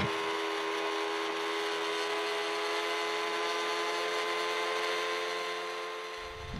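Small boat motor running steadily, pushing a small aluminium jon boat: a steady whine holding several fixed tones, easing off slightly near the end.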